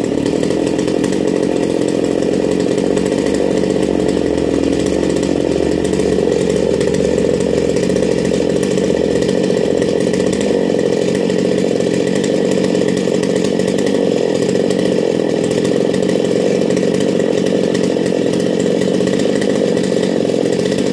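Stihl MS 250 two-stroke chainsaw running at a steady high speed, cutting into Douglas fir.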